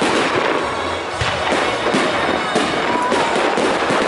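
Aerial fireworks shells bursting in quick, irregular succession: many sharp bangs over a continuous crackle.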